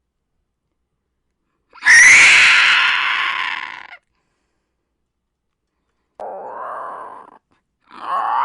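A person's voice imitating a monster: a loud, screeching roar about two seconds in that fades out over about two seconds, then a shorter, quieter, lower growl around six seconds in, and another roar starting just before the end.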